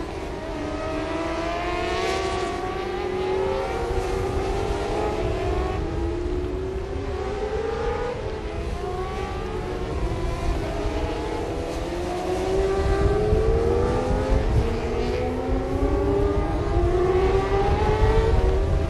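Several 600 cc supersport racing motorcycles accelerating hard, their engines climbing in pitch again and again as they shift up through the gears, with several engines heard at once. The sound grows louder about twelve seconds in.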